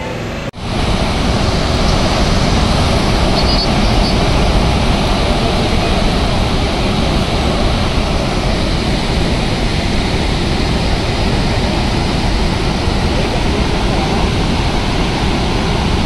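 Floodwater pouring from a large dam's open spillway gates: a loud, steady rush of water, with a brief dropout about half a second in where the recording cuts.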